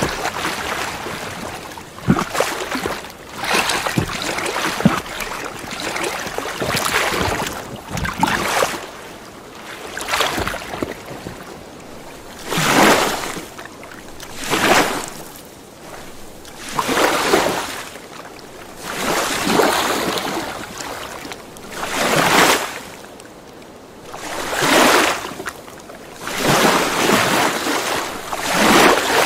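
Small waves washing in and falling back in slow, repeated swells, about one every two to three seconds, with a few sharp knocks in the first five seconds.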